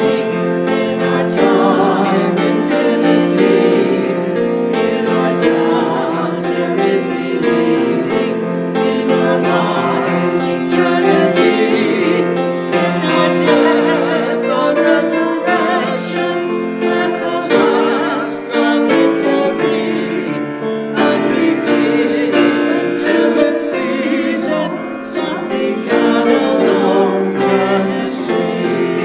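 Several voices, men and women, singing a hymn together with piano accompaniment.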